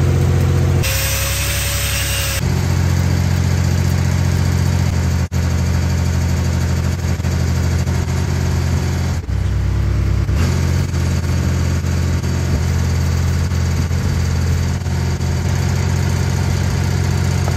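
Engine-driven welding machine on a mobile welding rig running steadily while stick welding is done, with a loud hiss for about a second and a half near the start.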